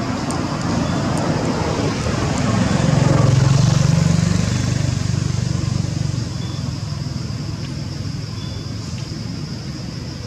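Low engine rumble of a passing vehicle, swelling about three seconds in and then fading, over steady outdoor background noise.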